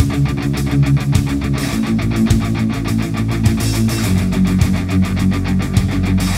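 Background rock music led by guitar, with a fast, steady beat.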